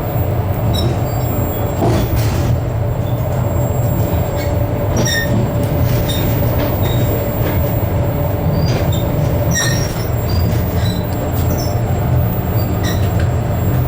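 Express passenger train running along the track, heard from inside the carriage: a steady low rumble with a faint held whine and short high squeaks now and then.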